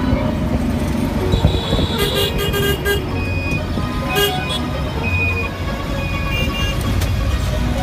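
A vehicle running with a steady low rumble, with short horn toots over it.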